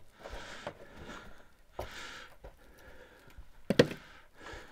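A man breathing audibly in a few long breaths, with faint taps of movement and a sharp knock about three-quarters of the way through, which is the loudest sound.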